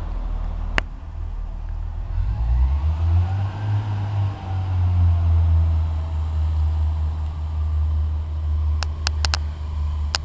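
Northern Rail diesel multiple unit's underfloor diesel engine running at the platform, a steady low throb that swells about two and a half seconds in. A few sharp clicks near the end.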